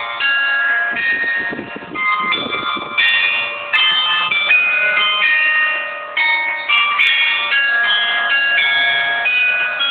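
Tower bells playing a melody, one clear note after another in quick succession. Wind gusts rumble on the microphone about one to three seconds in.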